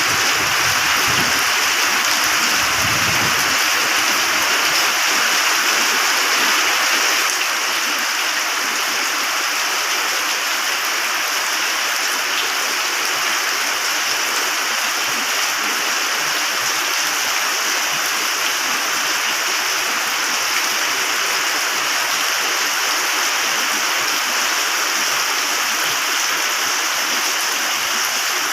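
Heavy rain falling in a steady, even hiss, with a low rumble of distant thunder in the first few seconds. The overall level drops slightly about seven seconds in.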